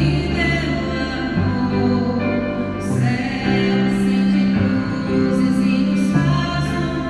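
A woman singing into a microphone, accompanied by a bowed cello and a keyboard playing sustained chords.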